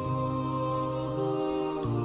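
Slow, sad nasheed background music of wordless vocal 'aahs': long notes held over a low drone, the pitch stepping to a new note about every second.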